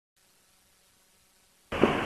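Silence, then sound cuts in abruptly near the end: a short knock followed by a steady hiss of room noise.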